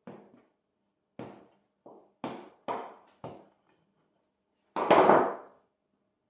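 Wooden rolling pin pressed and run over the rim of a fluted metal tart tin to cut off the excess pastry: a series of short wooden knocks, about six in the first three and a half seconds, then one louder, longer thud about five seconds in.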